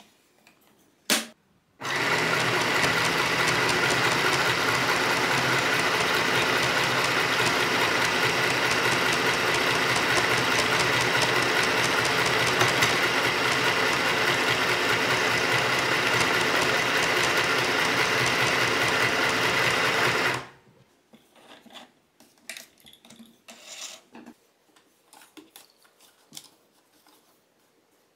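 Easymaxx compact sewing machine running steadily as it stitches through fabric, starting about two seconds in and stopping abruptly after some eighteen seconds. A single click comes just before it starts, and light handling noises follow.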